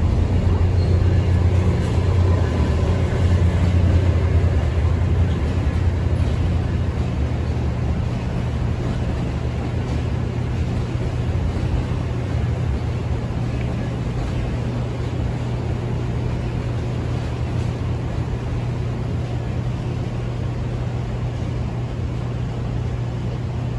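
Virginia Railway Express commuter train passing on a steel railway bridge. The diesel locomotive's low engine drone is loudest in the first few seconds, then gives way to a steady rumble as the passenger cars roll by.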